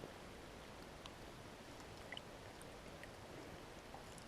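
Quiet outdoor background with a handful of faint, scattered ticks.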